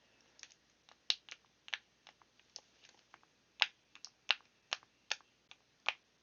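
T-Rex-shaped silicone pop-it fidget toy having its bubbles pressed through one by one: a string of sharp pops at an uneven pace, about two or three a second.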